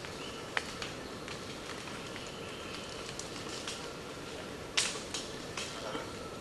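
Tropical forest ambience: a steady hiss with scattered sharp snaps and crackles like twigs and leaves. The loudest crack comes about three-quarters of the way through.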